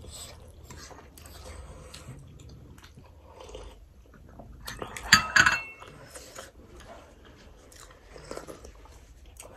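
Close-up eating sounds: chewing with small clinks of spoons and bowls, and one loud slurp of soup from a bowl about five seconds in.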